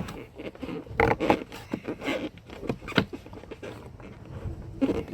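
Small parts being handled: irregular rustling, scraping and clicks from the new washer pump and gasket and their packaging.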